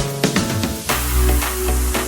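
Electronic dance music: a beat with deep bass-drum hits, then about a second in a heavy sustained bass comes in under a wash of hiss.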